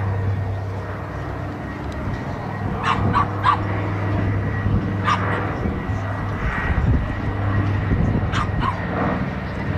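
Consolidated PBY-5A Catalina's two Pratt & Whitney R-1830-92 radial engines running in a steady drone as the flying boat passes low overhead. A few short, sharp barks cut in, around three, five and eight seconds in.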